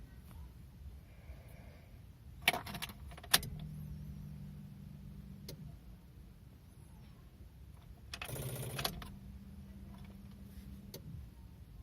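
A 2006 Honda City's ignition key being worked on a car that won't start: keys jangle and click in the ignition, and a steady low hum comes on for about two seconds. About eight seconds in, a short burst of under a second comes as the key is turned to start, the low hum returns briefly, and the engine does not catch.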